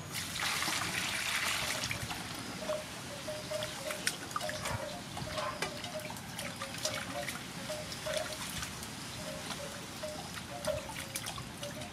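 Water poured from a plastic bowl into a large aluminium bowl for about two seconds, then splashing and trickling as peeled jicama roots are rubbed and washed by hand in the water.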